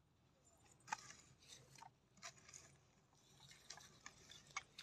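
Small hand hoe chopping and scraping into dry soil: faint, irregular crunchy strokes, the sharpest about a second in.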